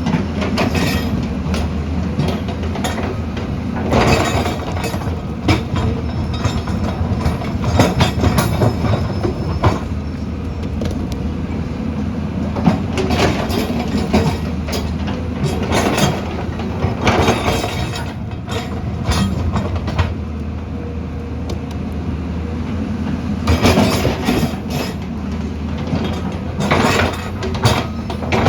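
Heavy earthmoving machine's engine running steadily under load, with repeated irregular metallic clanks and scraping of rock and gravel.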